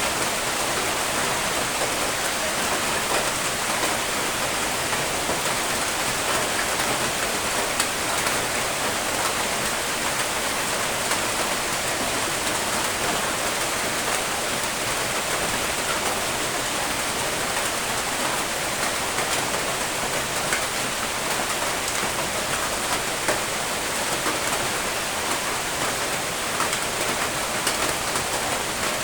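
Steady rain falling, a constant hiss with scattered drops pattering on a surface.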